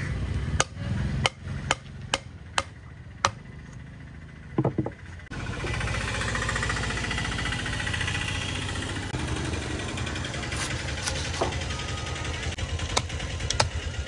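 Sharp knocks of a long knife chopping through a large tuna's head and striking the wooden table, one every half second or so. About five seconds in, a steady engine-like hum with rattling sets in and carries on under a few more knife clicks.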